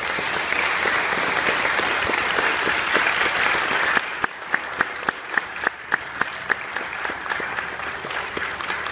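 Congregation applauding. About four seconds in the applause thins, and single loud, close claps stand out, about three a second.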